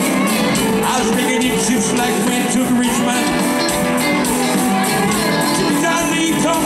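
Live country-rock band playing an instrumental passage: two electric guitars, electric bass and drums, with a lead guitar line of sliding, bending notes.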